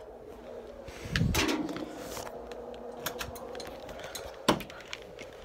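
Rustling and handling noise as people move about, with a low thump about a second in and one sharp click near the end, over a faint steady hum.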